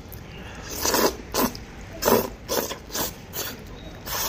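A person slurping thick noodles off chopsticks in a series of short, noisy sucks, about seven over four seconds.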